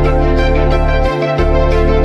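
Background music with a steady beat over sustained keyboard-like tones. The bass drops out briefly just after a second in.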